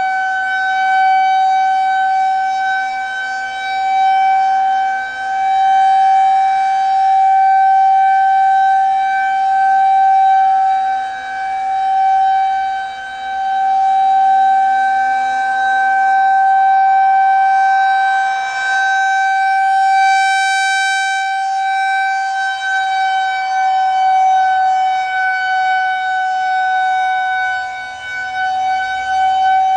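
Federal Signal 2001-130 outdoor warning siren sounding a steady full-alert tone, one held pitch with no rise or fall, while its rotating horn sweeps round. Its loudness swells and dips every few seconds as the horn turns toward and away, and it sounds brightest and sharpest about two-thirds of the way through.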